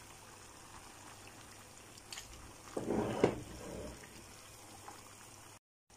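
Plastic spatula stirring a pan of stewed cabbage in sauce, with a soft wet scraping and squelching about three seconds in over a faint low background.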